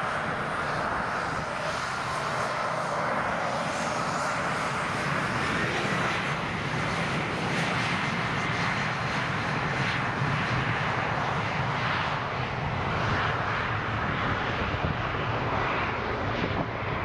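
Embraer E190 jet's two turbofan engines at high thrust as it starts its takeoff roll: a steady, loud jet noise with a faint high fan whine, swelling slightly as the aircraft gathers speed.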